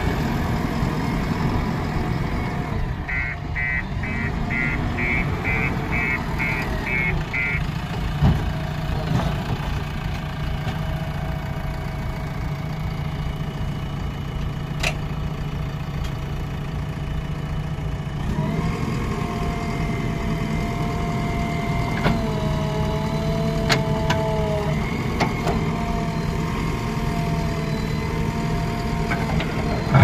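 JCB 3DX backhoe loader's diesel engine running steadily, with a run of about ten short beeps about three seconds in. From a little past halfway the engine picks up under load and a steady hydraulic whine joins it as the backhoe arm is worked.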